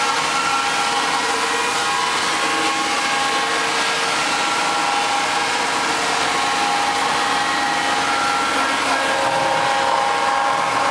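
Electric-motor-driven sawdust machine (wood crusher) running steadily: a constant whine of several steady tones over a dense rushing noise, with no knocks or changes in speed.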